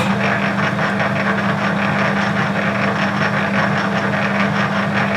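Metal lathe running in reverse, its motor humming and gear train rattling steadily as it drives the carriage back along the leadscrew with the half-nut still engaged between thread-cutting passes. It starts suddenly.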